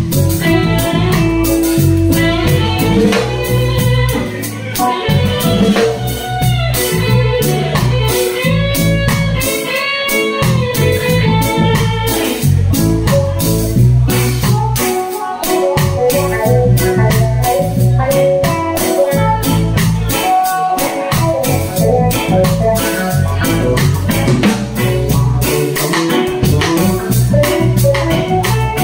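Live band playing: a stage keyboard, an electric guitar and a drum kit with cymbals, keeping a steady beat throughout.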